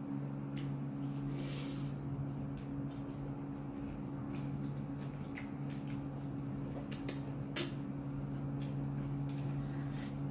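A person eating noodles: a few short slurping and sniffing noises over a steady low hum.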